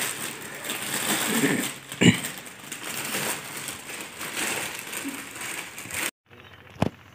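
Plastic bags and clothes rustling and crinkling as they are handled and unpacked, with one sharp knock about two seconds in; the rustling stops abruptly about six seconds in.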